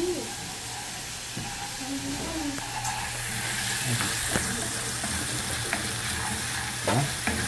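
Chopped garlic and seasoning sizzling as they fry in hot olive oil in a small pan, a steady hiss that grows stronger about three seconds in. A few short clicks of a utensil against the pan come through it.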